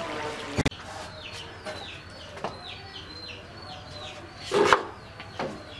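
Birds calling: a run of short chirps, each falling in pitch, about two a second, with a louder call about four and a half seconds in.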